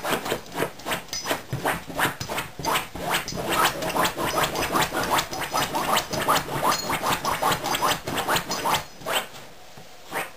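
Beagle puppy digging and rooting at a fabric couch cushion: a fast run of scratching and snuffling sounds, several a second. They stop about nine seconds in, with a couple more near the end.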